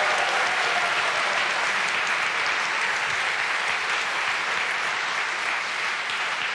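Large studio audience applauding steadily, easing off slightly towards the end.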